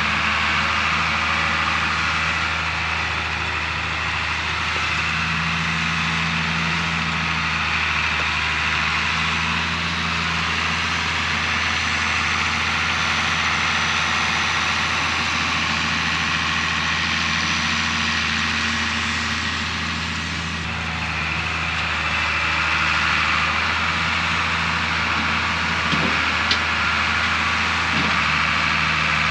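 Old tractor engine running steadily as the tractor works with its front loader, moving firewood rounds, with small shifts in its tone and a couple of light knocks near the end.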